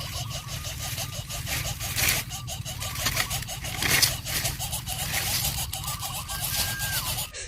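Greater coucal nestlings calling in a fast, even series of short chirps, about seven a second, with two louder hissing bursts about two and four seconds in.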